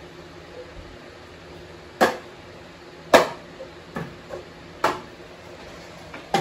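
Plastic party cups being knocked down onto a wooden table: about five sharp taps a second or so apart, with a few fainter ones in between, the loudest about a second after the first.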